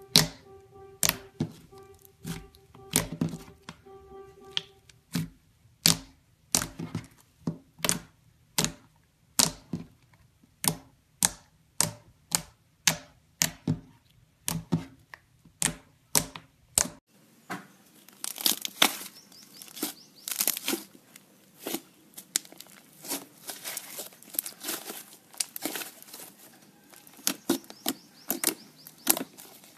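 White slime squeezed and pressed by fingers, giving sharp air-bubble pops roughly twice a second. About halfway through, a fluffy white slime takes over with denser, crackly popping.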